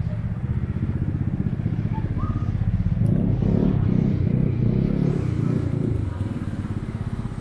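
Steady low machinery hum, swelling louder for about three seconds from around three seconds in.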